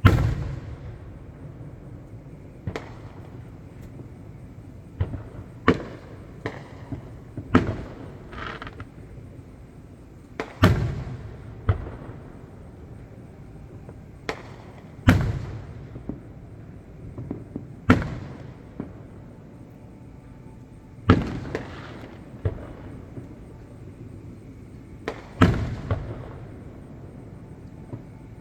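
Fireworks going off at a distance: a dozen or so sharp booms at irregular intervals, a few seconds apart, each echoing away, with some smaller crackling pops between them.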